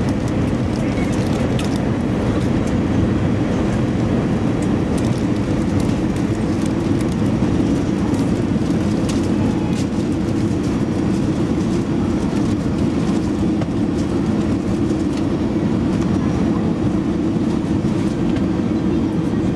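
Steady low rumble of jet engine and airflow noise inside the cabin of an Airbus A320 airliner on final approach, with a few faint clicks here and there.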